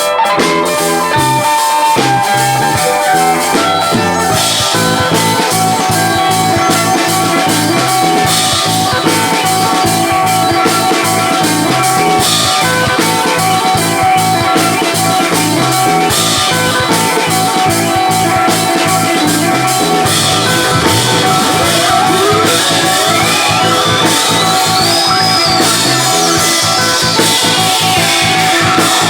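A live rock band plays an instrumental passage with guitars and a drum kit. From about two-thirds of the way in, one tone sweeps steadily up in pitch, holds briefly, then slides back down near the end.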